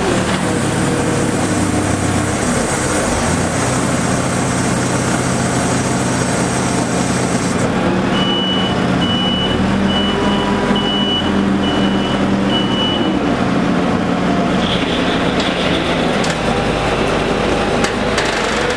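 Claas telehandler's diesel engine running steadily while it loads a round bale, with a high hiss that cuts off suddenly about eight seconds in. Around the middle, its reversing alarm beeps about six times.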